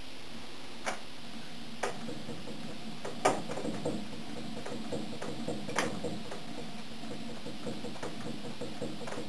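Stirling refrigeration unit: a few sharp clicks, then from about three seconds in a soft, uneven ticking rattle.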